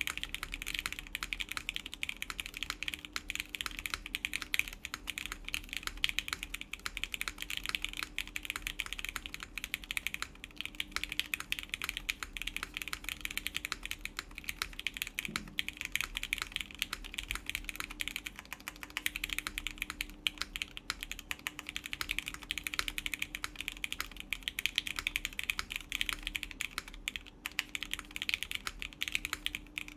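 Steady, fast typing on a custom Etar87 mechanical keyboard: lubed Gateron Yellow linear switches with milky tops in a full aluminium plate, bottom-mounted, giving a dense stream of keystroke clicks.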